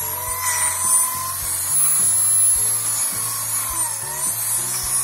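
Electric drill boring into a wooden beam, running steadily with a whine that dips in pitch about four seconds in as the bit bites, widening the hole so a screw head can sink in.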